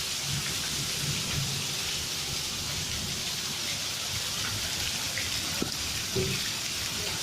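Heavy rain mixed with hail pouring down: a steady hiss of falling water with scattered sharp hits and a low rumble underneath.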